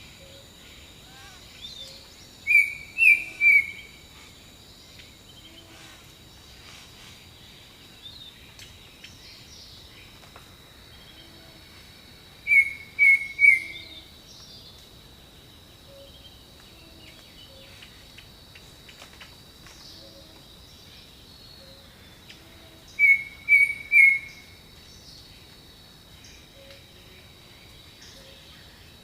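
Tropical forest birdsong: a bird repeats a loud phrase of three quick notes about every ten seconds, three times, over a steady high insect drone and scattered softer, lower calls.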